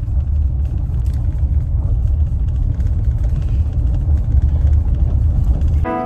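Steady low rumble of a car driving, heard from inside the cabin; it cuts off abruptly near the end.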